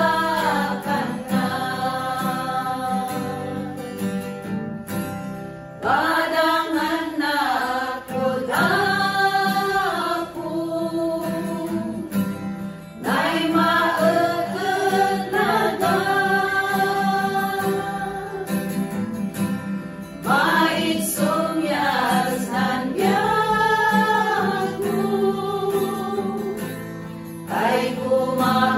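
Small group of women singing a hymn together in sung phrases with short pauses between lines, accompanied by an acoustic guitar.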